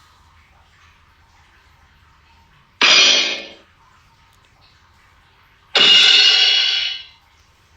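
Two cartoon crash sound effects, each a sudden metallic crash that rings and fades, the first about three seconds in and short, the second a few seconds later and longer.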